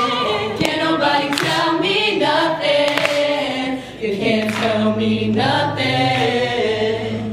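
Mixed voices of an eight-member a cappella group singing in harmony, with sharp vocal-percussion clicks through the first half. About four seconds in they settle into one long held chord over a steady low bass note.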